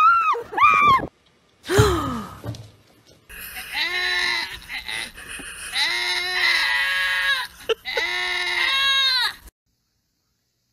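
Goats bleating in a run of long, scream-like calls for about six seconds, after short high-pitched cries in the first two seconds. The sound cuts off about a second before the end.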